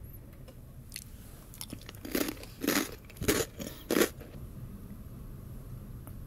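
Calbee Jagabee potato stick being bitten and chewed: about four loud, sharp crunches in quick succession, starting about two seconds in.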